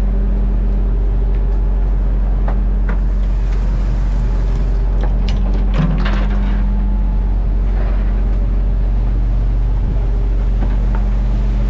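Fishing boat's engine running steadily with a low, even hum, and a few knocks about halfway through.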